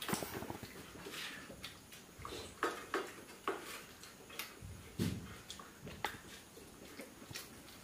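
Eating by hand from steel plates: irregular wet smacks and chewing, with fingers working rice against the metal plates, and a dull knock about five seconds in.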